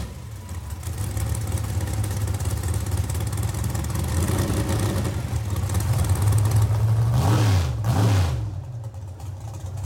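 Dragster's V8 running at a rough, steady idle with open exhaust headers. It is blipped lightly about four seconds in, then given two quick, loud revs close together near the end, each rising and falling.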